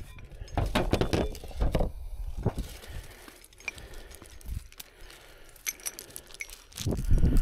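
Metal recovery rigging (hooks and shackle hardware) clinking and rattling as it is handled against the car body, with scattered knocks and brush rustling; a louder burst of handling noise comes near the end.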